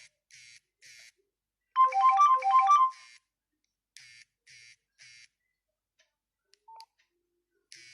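Nokia 6500 slide ringtone: a quick phrase of short electronic beeping notes about two seconds in. Soft, hissy taps come in threes before and after it, and a brief single tone sounds near the end.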